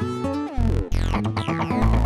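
Electronic dance music with synthesizer and heavy bass, with repeated falling pitch sweeps.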